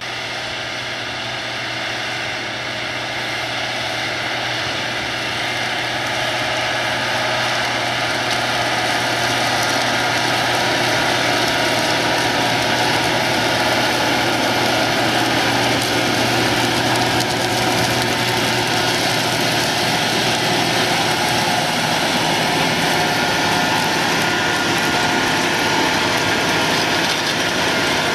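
Case IH Quadtrac 580 tracked tractor working a field, its diesel engine running steadily under load together with the rushing, clattering noise of the disc harrow it pulls through the stubble. The sound grows louder over the first several seconds as the tractor comes closer, then holds steady.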